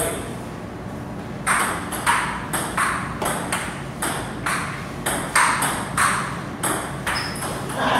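Table tennis rally: the ball clicks sharply off the paddles and the table in a steady back-and-forth rhythm, just under two hits a second, starting about a second and a half in.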